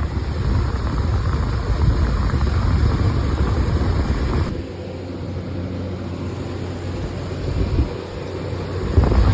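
Loud steady rush of air from a blower, with a heavy low rumble; it drops to a lower level about halfway through.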